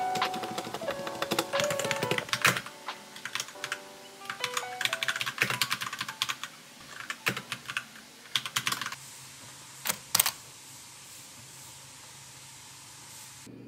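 Fast typing on a Royal Kludge mechanical keyboard, a dense run of clacking keystrokes that thins out and stops about nine seconds in. Two louder clicks follow around ten seconds in. Soft background music plays under the typing in the first few seconds.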